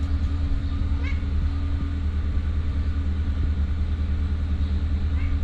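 Stray cat giving short, faint rising meows about a second in and again near the end, over a loud steady low motor hum.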